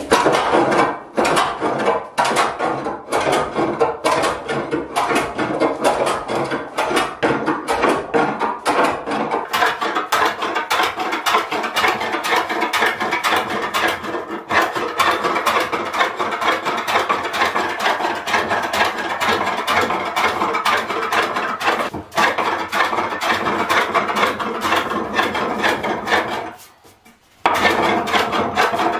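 Metal bench plane shaving wood, stroke after stroke in a steady rasping run; it pauses briefly about two seconds before the end, then resumes.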